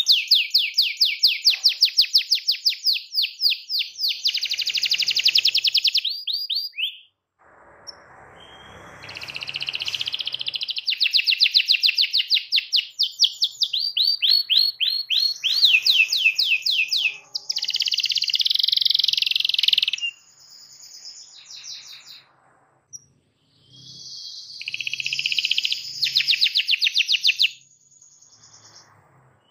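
Canary singing long rolling trills of rapid, evenly repeated high notes, in phrases several seconds long with short pauses between them.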